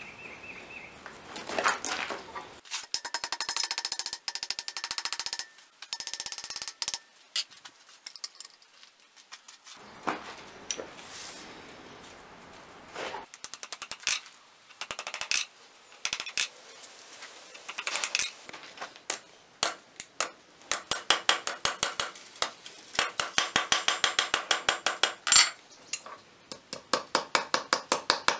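A small hammer tapping a copper strip on a steel anvil, folding it around a sword blade's tang: light metallic taps, irregular at first, then a steady run of about three a second in the second half.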